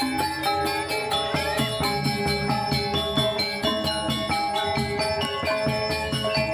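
Balinese gamelan playing: many bronze metallophone notes struck in quick, dense succession, ringing over one another.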